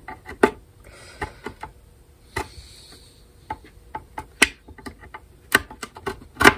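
Irregular sharp clicks and ticks, with two brief scrapes, as a thin heated blade is worked into the glued seam at the edge of a bowl-back mandolin's top to pry it loose.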